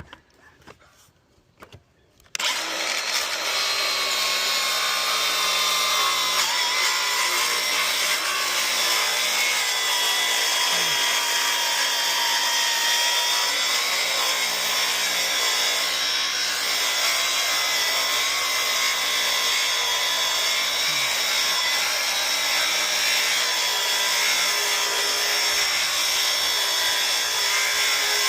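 Electric power saw running steadily through the fascia board, trimming it flush with the soffit; it starts about two seconds in and runs without a break.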